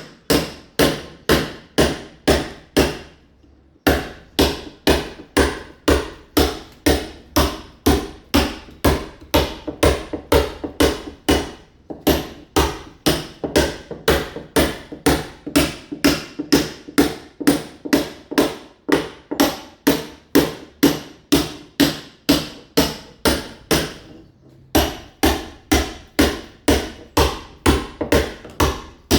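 Mason's hammer striking a chisel against a masonry wall in a steady rapid rhythm, about three blows a second, chipping the wall surface to roughen it for ceramic tile. The blows stop twice for about a second.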